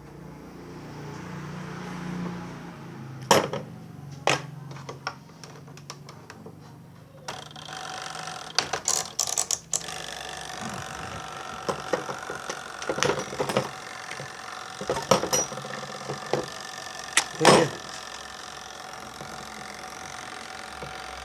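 Scattered sharp clicks and knocks of handling and tool work on the spin-dryer switch contacts of a twin-tub washing machine. About seven seconds in, a steady mechanical hum with a few held tones starts and runs on under the clicks.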